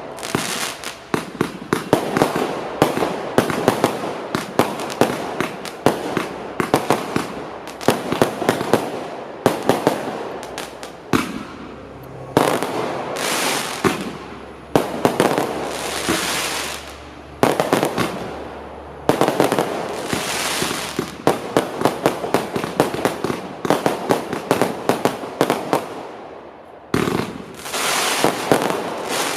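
Startrade Feuerzauber compound firework cake firing shot after shot in quick succession. Launch thumps, bursts and crackling effects overlap, with a few brief pauses between volleys.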